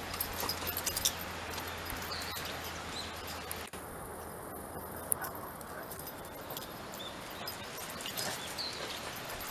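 Light ticking and patter of Shiba Inu paws and claws on concrete over a quiet outdoor background, with a few faint bird chirps.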